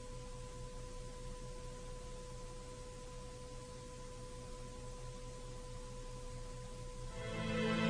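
A faint, steady pure tone with a fainter tone an octave above it, over a low hum and hiss. Music fades in near the end.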